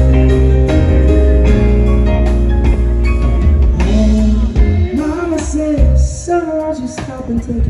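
Live band music on acoustic guitar, drum kit and keyboards, with a heavy bass and held notes. A man's singing voice comes in about halfway through.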